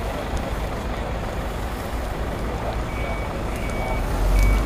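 A vehicle's reversing alarm starts about three seconds in, a single high beep repeating about every 0.7 s, over a steady low rumble of outdoor vehicle noise. A brief louder low thump comes just before the end.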